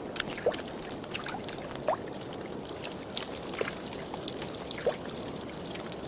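Shallow water trickling over thawing ice, with scattered small drips and plops.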